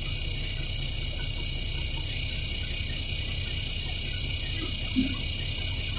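Cabin sound of a NefAZ 5299 city bus standing still, its Cummins ISBe diesel idling with a steady low rumble under steady high-pitched tones. There is a short soft knock about five seconds in.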